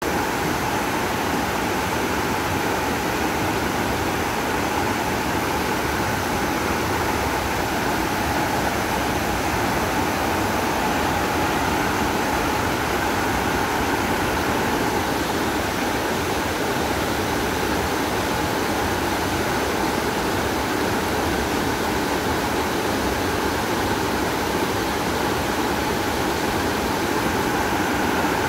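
Nyahururu Falls, a tall plunge waterfall, heard from near its base: a steady, loud roar of falling water with no breaks.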